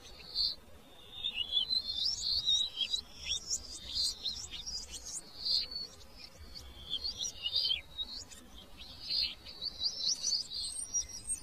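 Birds chirping: rapid runs of short, high, downward-sliding chirps, coming in bursts with brief pauses.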